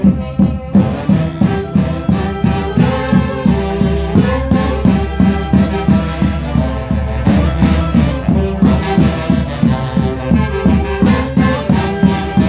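Andean folk orchestra (orquesta típica of the Huancayo region) playing a lively dance tune, wind instruments carrying the melody over a steady, pulsing bass beat.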